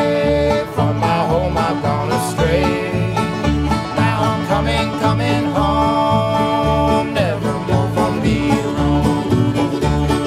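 Old-time string band playing an instrumental break: a bowed fiddle melody with sliding notes over a steady upright-bass beat and strummed guitar.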